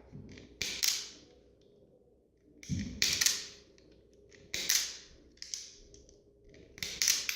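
Self-adjusting automatic wire stripper gripping and stripping wires one after another: a series of sharp snaps and clicks a second or two apart as the jaws clamp, pull the insulation off and spring open.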